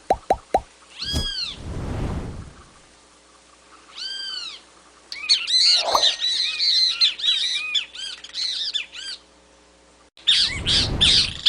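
Bird calling: single arched, squawking notes about every one and a half seconds, then from about five seconds in a rapid jumble of chirps and squeaks lasting about four seconds, breaking off and starting again near the end. Short bursts of low rushing noise come with some of the calls.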